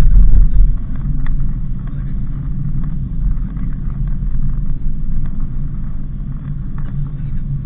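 Steady low driving rumble of a Daihatsu Sigra on the road, a little louder in the first second.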